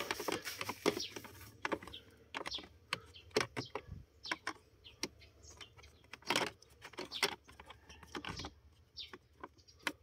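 Irregular plastic clicks and taps as the Nissan Navara's cabin air filter cover is handled and pressed back into place in its housing behind the glovebox.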